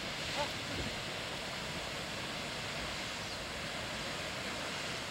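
Old Faithful geyser in full eruption: a steady rushing hiss of water and steam jetting from the vent.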